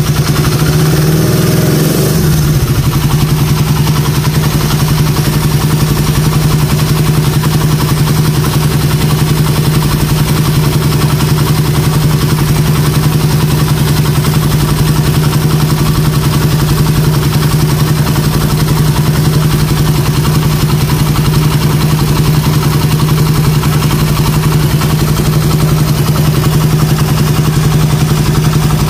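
Suzuki Satria's single-cylinder four-stroke engine idling steadily while its manual cam chain tensioner is set by ear; the note wavers briefly in the first couple of seconds, then holds even.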